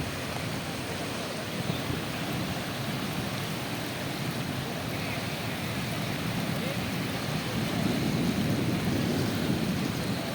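Floodwater rushing past in a steady, continuous wash of noise, growing a little louder near the end.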